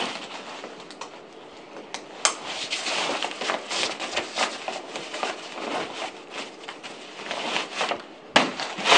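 Nylon rope bag and pack fabric rustling and scraping as the bag is pushed and pressed into place on top of a canyoneering pack, with a couple of sharp knocks, the loudest near the end.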